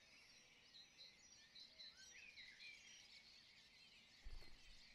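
Faint chirping of many small birds, a scatter of short high calls. A brief low thump comes near the end.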